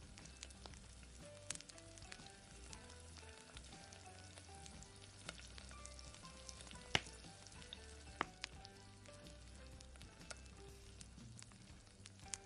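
Beef kebabs sizzling and crackling as they shallow-fry in oil in a cast-iron skillet, with scattered sharper pops, the loudest about seven seconds in. Soft background music with a low beat plays under it.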